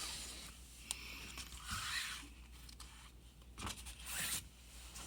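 Soft, brief rustling and scraping from an award ribbon being handled and smoothed, with a light click about a second in.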